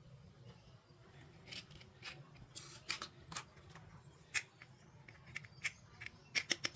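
Small hard toy pieces and packaging being handled: scattered clicks and short rustles, then a quick run of about eight clicks near the end.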